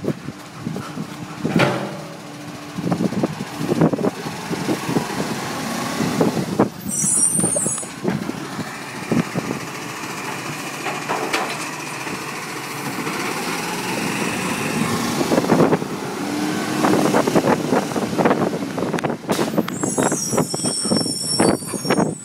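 Side-loading garbage truck's automated arm lifting and tipping a wheelie bin into the hopper: hydraulics whining steadily in the middle while the bin and rubbish clatter and knock. Air brakes hiss twice, about 7 s in and again near the end.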